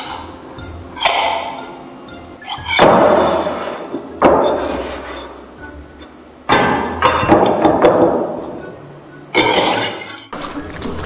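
Stainless steel bowls knocked and clanked together, about six metallic hits, each ringing and fading away. Foley for a baby banging metal bowls on the floor.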